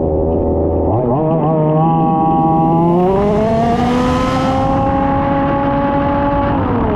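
Small two-stroke petrol engine of a 1/5-scale RC Formula 1 car: low revs for about a second, then it picks up, climbs higher around three seconds in, holds high revs, and drops back near the end.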